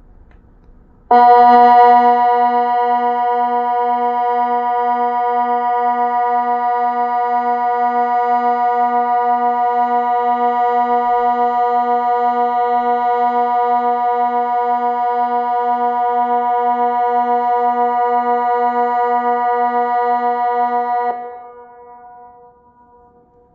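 Kockum Sonics Delta 4 electronic siren sounding one long tone of the Swiss water alarm, the flood warning: a steady chord with a slight regular throb in its lowest note. It starts about a second in, holds for about twenty seconds and cuts off suddenly, with fainter tones lingering for a couple of seconds afterwards.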